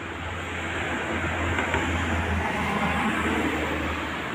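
Low, steady rumble of road traffic that swells a little through the middle and eases off near the end.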